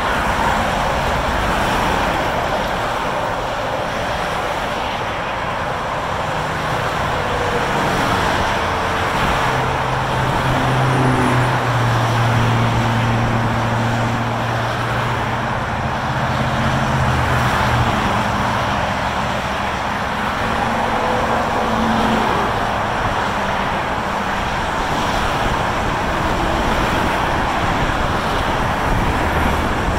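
Steady roar of freeway traffic heard from an overpass: tyre and engine noise from many cars and trucks passing below in both directions. A low drone joins for several seconds in the middle.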